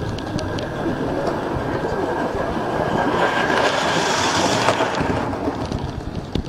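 Merlin Beck 16mm-scale live steam locomotive running along the track with a steady rushing hiss and light clicks from the rails. It grows louder as it comes close and is loudest about four seconds in, then eases off.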